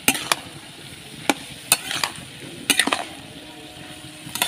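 Long metal spatula scraping and knocking against a metal kadai as chopped vegetables are stirred. The strokes come as irregular sharp scrapes, over a steady sizzle from the pan.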